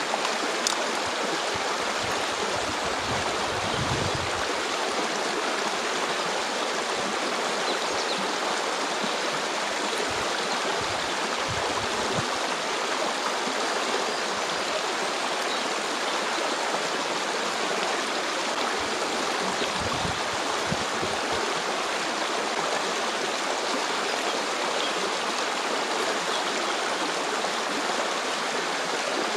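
Stream flowing steadily: an even, unbroken rush of water.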